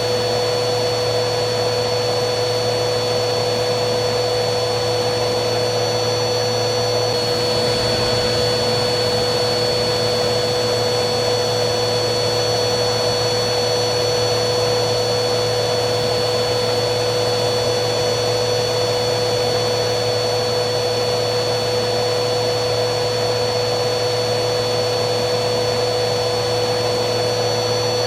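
Vacuum cleaner motor running steadily: a continuous rush of air with a constant hum and a thin high-pitched whine on top.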